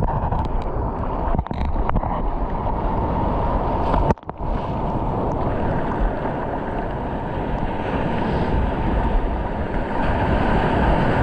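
Ocean surf washing and churning around a wader in the shallows, with wind buffeting the microphone; the sound dips out for a moment about four seconds in.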